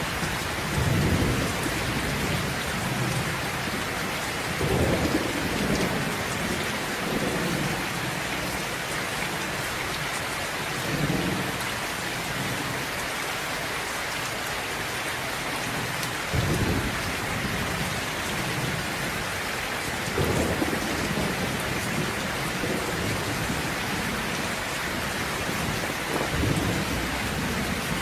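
Steady rain falling, with about seven low rolls of thunder rumbling at intervals of a few seconds.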